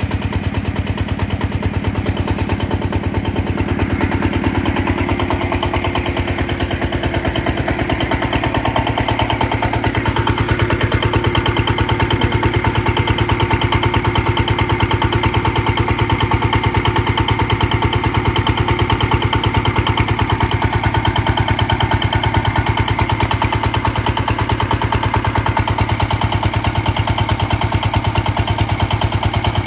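Single-cylinder horizontal diesel engine running steadily under load, driving a belt-driven irrigation water pump, its firing beats even and regular. It gets a little louder about ten seconds in.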